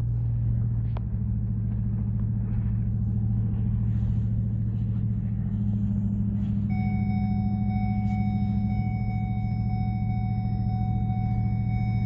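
Pickup truck engine running steadily, heard from inside the cab, with road noise, while towing a trailer loaded with heavy hay bales. A thin, steady high tone joins in about seven seconds in and holds.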